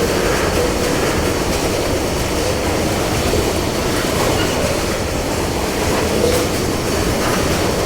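CSX freight train rolling past, a steady rumble of wheels on rail.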